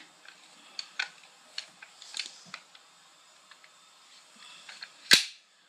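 Scattered light clicks from handling the adjustable folding stock of a Tippmann Sierra One paintball marker, then one loud, sharp snap about five seconds in.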